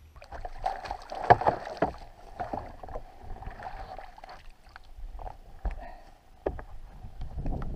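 A whitefish splashing in a landing net as it is scooped and lifted out of the lake, then knocks as the net and fish are set down on the boat's deck. The sharp splashes and knocks are irregular, the loudest about a second in.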